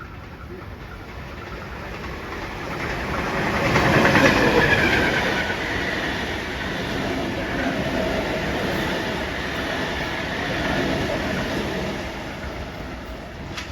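A train passing at speed, loudest about four seconds in, then a steady rolling rumble of the carriages going by that fades near the end.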